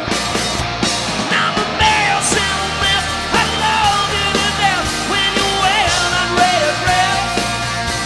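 Live rock band playing, with electric guitars, bass guitar and drums, and a lead vocal singing over them from about two seconds in.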